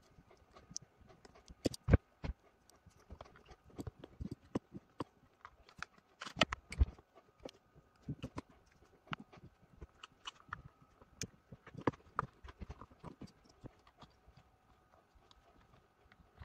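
Irregular light clicks, taps and knocks of plastic and metal parts being handled as a Parkside cordless impact wrench's motor, wiring and trigger switch are fitted back into its plastic housing, a few louder knocks about two seconds in and again around six to seven seconds.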